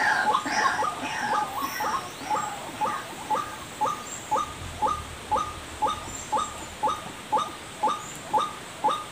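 White-breasted waterhen calls used as a trapping lure: a long run of short, repeated notes about two a second. They are louder and fuller at the start, then settle into a steady, even rhythm.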